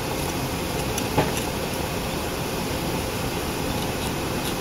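Steady rumbling, hissing background noise, like ventilation or machinery running in the room, with one light click about a second in.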